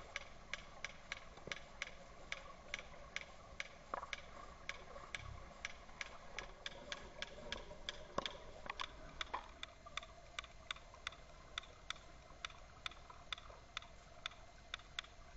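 Regular sharp underwater clicks, about two and a half a second, picked up through the camera's waterproof housing, with a faint steady hum beneath.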